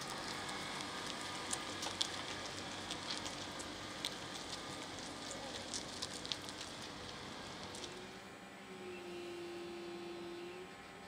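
Tyres rolling slowly over gritty asphalt: a crackling hiss with scattered small clicks. It drops away about eight seconds in, and a steady hum sounds for about two seconds near the end.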